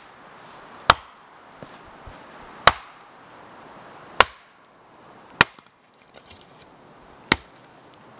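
Axe splitting firewood on a stump chopping block: five sharp chops, one to two seconds apart.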